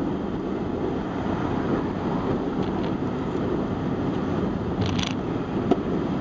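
Steady road and engine noise of a moving car, heard from inside the cabin, with a couple of brief clicks about five seconds in.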